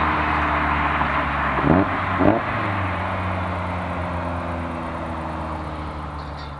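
Toyota AE86 Corolla's four-cylinder engine running steadily under road noise, with two short rising revs about two seconds in. It then fades gradually away.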